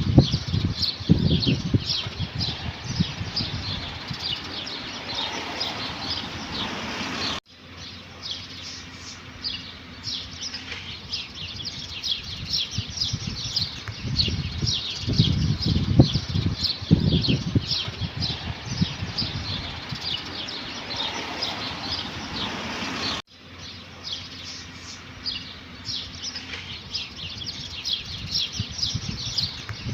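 A flock of small birds chirping busily, many quick overlapping tweets, with irregular low fluttering rumbles underneath. The sound breaks off abruptly and restarts twice, where the recording is spliced.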